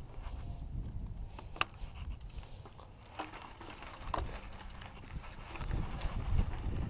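A mountain bike being handled and set off on a dry dirt trail: scattered clicks and knocks over a low wind rumble on the microphone, with the rumble and tyre noise growing louder near the end as the bike starts to roll.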